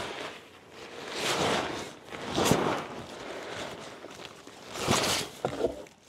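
Rustling and scuffing of handled camping gear, coming in three or four short swells.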